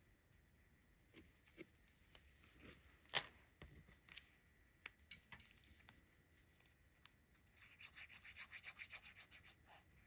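Faint paper-handling taps and clicks, then near the end a quick run of short rubbing strokes on paper, about seven a second, as glue is spread over the back of a cut paper piece.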